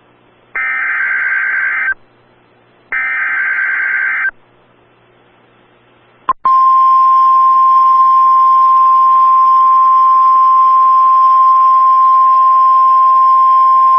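Emergency Alert System SAME header: two harsh, buzzy digital data bursts about a second and a half apart, each lasting just over a second. About two seconds later there is a click, then the weather radio's steady single-pitch warning alarm tone starts and holds. Together these signal the start of a new weather warning broadcast.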